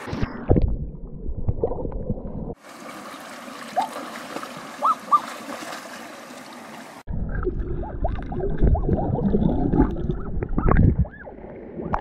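A person splashing and wading in a shallow rocky stream, heard muffled and deep in two stretches: the first two and a half seconds and again from about seven to eleven seconds. Between them comes a few seconds of steady stream rushing.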